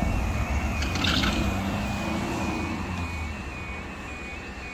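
A UK level crossing's two-tone 'yodel' warning alarm sounding steadily as the crossing begins its warning sequence. A van crosses over the tracks, its engine and tyre noise fading away, with a short hiss about a second in.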